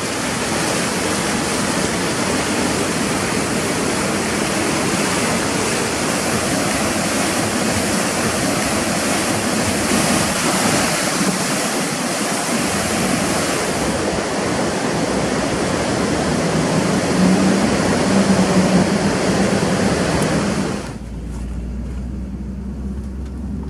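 Fast-moving water rushing in a steady, dense roar. Near the end it cuts abruptly to a vehicle's low, steady hum.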